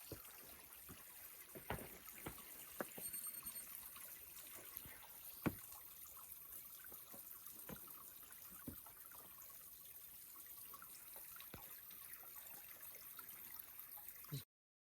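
Faint water dripping and trickling on wet rock: soft, irregular drip ticks over a low hiss, one a little louder about five and a half seconds in. The sound cuts off abruptly just before the end.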